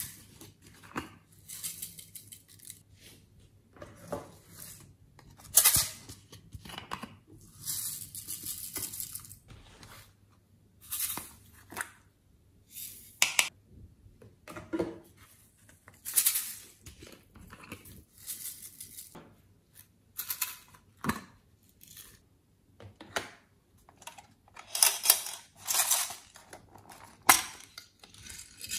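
Glitter, sequins and beads being shaken out of plastic shaker containers into a glass baking dish, in a string of short rattling, pattering bursts, with a few sharp clacks of the plastic containers being handled.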